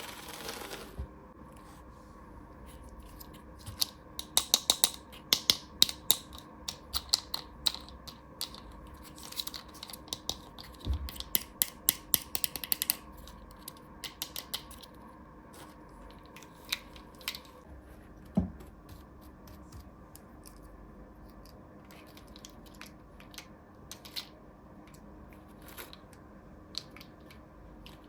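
Small hard plastic toy pieces being handled, giving irregular quick clicks and taps in bursts, with some brief rustling and a couple of duller knocks.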